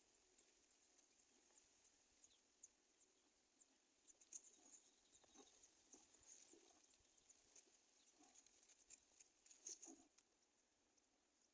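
Near silence: faint ambience with scattered light ticks and rustles, thickest from about four to ten seconds in, over a thin high hiss.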